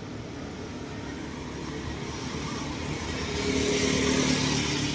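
Cars driving past on the street: tyre hiss and engine hum build up and are loudest as one passes close, about three and a half to four and a half seconds in.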